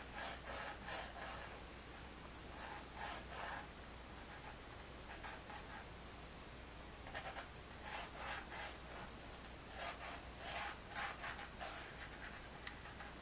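Pencil sketching: faint scratchy strokes of graphite on the drawing surface, coming in short irregular runs with brief pauses between them.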